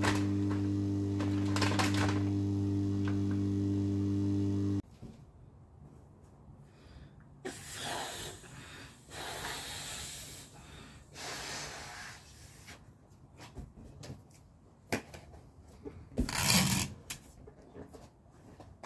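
A steady low hum with light clicks, cut off after about five seconds. Then a person blows up a rubber balloon, with several long breaths blown into it, and handles it, making rubbery rubbing noises, loudest near the end.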